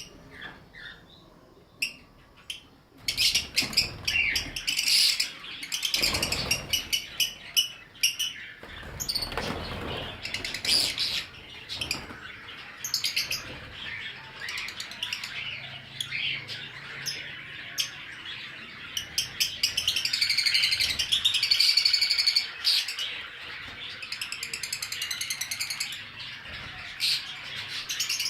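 Pet cage birds chirping and calling. Many rapid high chirps overlap in a busy chatter that starts about three seconds in.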